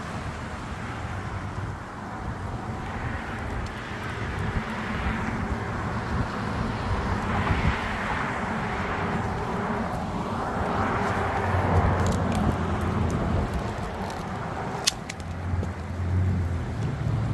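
Motor vehicle and road noise: a steady low engine hum under a noisy rush that swells and fades three times. A few sharp clicks come about fifteen seconds in.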